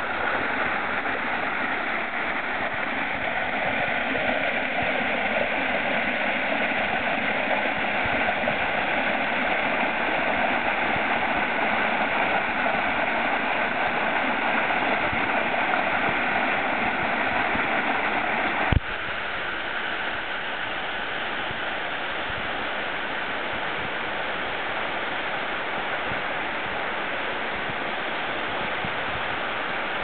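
Mountain stream water rushing over rocks and small falls, a steady hiss with no letup. About two-thirds of the way in there is a single sharp click, after which the rushing is a little quieter.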